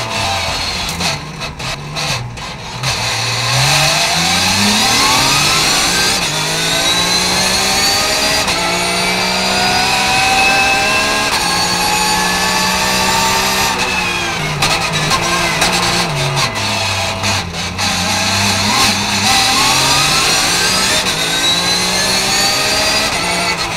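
Porsche 991 GT3 Cup Gen. II's flat-six engine at full race effort, heard from inside the cockpit. Revs sweep up again and again, each climb cut short by a quick upshift. Twice the revs fall under hard braking with a string of sharp cracks: a few seconds in, and again from a little past halfway until it pulls hard once more near the end.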